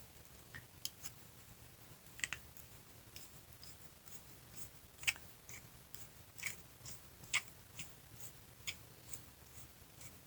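Faint, irregular small clicks and ticks of a screwdriver and small metal parts as the mixture adjustment screws are backed out of a small-engine carburetor.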